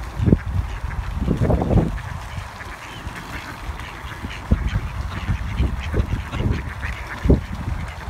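Ducks, among them mallards, quacking close by. Wind gusts rumble on the microphone, loudest about a second and a half in.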